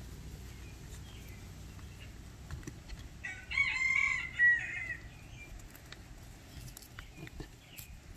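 A rooster crowing once, a single pitched call of under two seconds starting a little over three seconds in.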